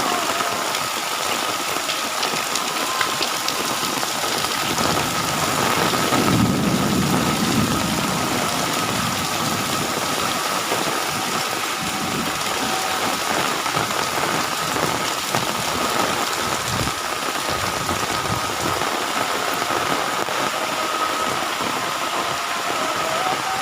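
Heavy rain pouring steadily, with a low rumble swelling about six seconds in and fading over a few seconds. A faint steady high tone runs under the rain.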